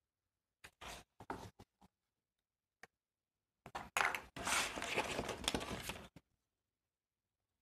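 Paper and card being handled on a work table: a few short rustles and scrapes, a faint tick, then a longer scraping rub lasting about two and a half seconds.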